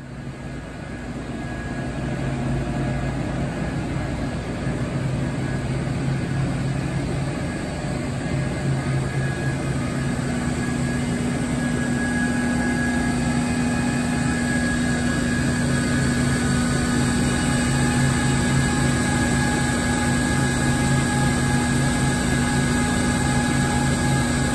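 Mazak Nexus 510C vertical machining center running under power: a steady mechanical hum with a few held tones, rising over the first two seconds, with a low tone growing stronger about ten seconds in.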